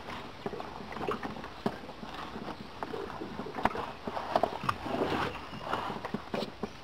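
Irregular knocks, bumps and rustling as a heavy fish sling is handled and pulled open against a small aluminium boat, with several sharp knocks through the middle and near the end.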